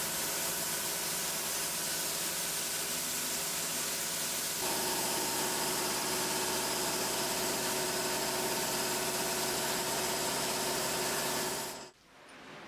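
Compressed-air spray gun hissing steadily as it sprays acrylic varnish, over the steady hum of an air compressor motor. The hum shifts a little about a third of the way in, and everything cuts off abruptly near the end.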